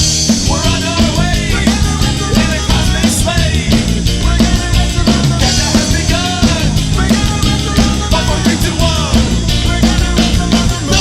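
1990s indie rock song: a sung lead vocal over a full rock band with electric instruments and a drum kit, playing at a steady driving beat.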